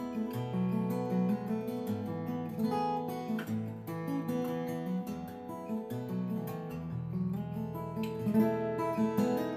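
Solo acoustic guitar playing an instrumental tune, plucked melody notes over a bass line that changes about once a second.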